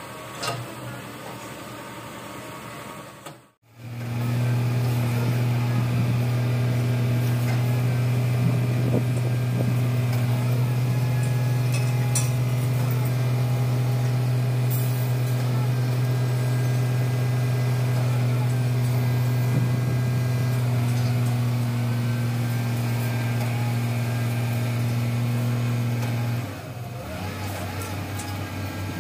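Kato SR250SP rough-terrain crane's diesel engine running at a steady speed: a loud, even drone. The first few seconds hold quieter site noise that cuts off abruptly, and the drone drops in level near the end.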